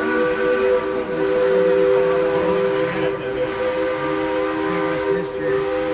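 Steam locomotive No. 111's chime whistle sounding one long, steady blast of several notes together.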